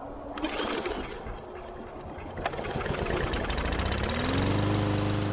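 Gas lawn mower engine being pull-started. About three seconds in it catches, and its speed rises and settles into a steady run.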